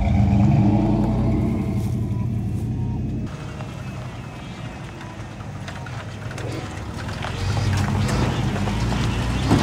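Pickup truck engines: a 1993 Chevy K1500's engine running steadily close to its tailpipe, then, after a sudden change about three seconds in, a 1994 Ford F150 driving down a dirt trail, its engine getting louder as it comes near.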